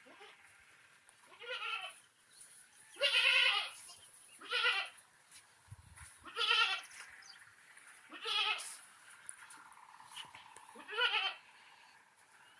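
Goats bleating: six short calls, one every two seconds or so.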